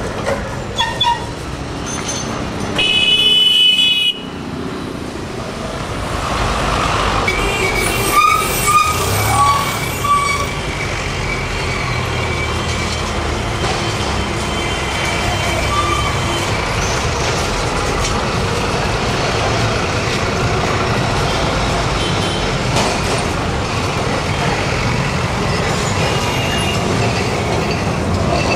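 Street traffic running steadily, with vehicle horns: a loud high horn blast about three seconds in that lasts about a second and stops suddenly, then a few shorter horn toots around eight to ten seconds in.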